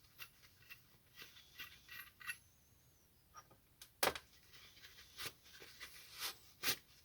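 Small metal parts of an oxy-acetylene cutting torch clinking and tapping as they are handled during disassembly, with a loud sharp knock about four seconds in.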